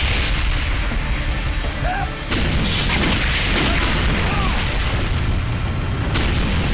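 Film action soundtrack: loud explosion booms with a deep rumble, fresh blasts about two seconds in and again near the end, mixed with a dramatic background score.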